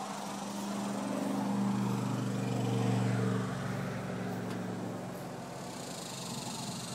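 An engine humming steadily, swelling for the first few seconds and then dropping back to a fainter, even hum.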